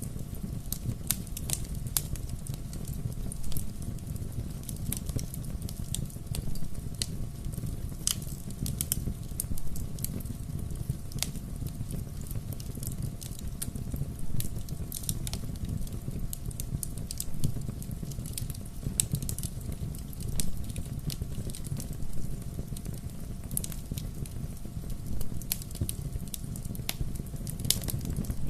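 Bonfire of burning wood crackling, with frequent irregular sharp pops and snaps over a steady low rumble of the flames.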